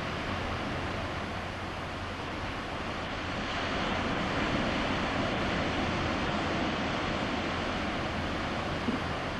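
Steady rushing outdoor noise of wind and distant surf, swelling a little partway through, with one small click near the end.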